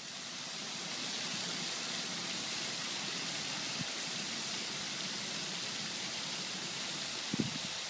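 Pond fountain jets spraying, the water falling back onto the pond in a steady hiss that swells up over the first second. A couple of soft low bumps sound over it, the clearest near the end.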